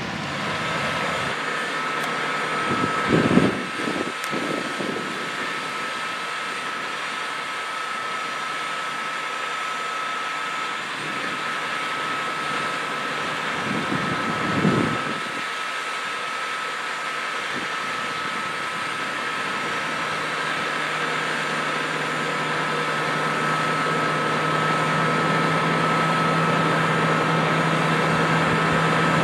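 Case IH Magnum 380 CVT tractor's 8.7-litre FPT diesel engine running steadily, with a steady high whine over it. The engine hum grows louder over the last third. Two brief low buffets come about 3 and 15 seconds in.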